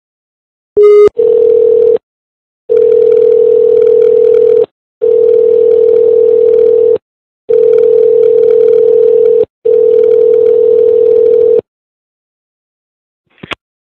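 Telephone dial tone over the line: a brief beep, then a steady tone in five stretches of about two seconds each with short breaks, followed by a single click near the end.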